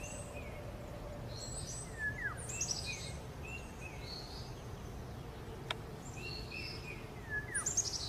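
Songbirds chirping in short phrases of high stepped notes and quick downward sweeps, one phrase pattern heard twice, over a steady background hiss. A single brief click about halfway through.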